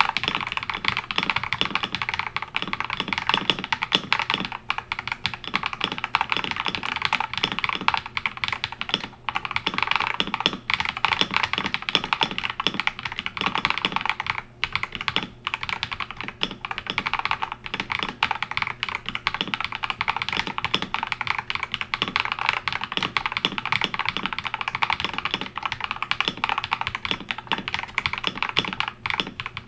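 Fast, continuous typing on an Akko 5075S mechanical keyboard with Akko Vintage White switches lubed with Krytox 205g0, mounted on a polycarbonate plate. The keystrokes come in a dense stream with a couple of brief pauses.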